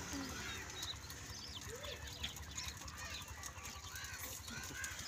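Birds chirping and fowl clucking, with short arched calls a couple of times about four seconds in, over a low rumble.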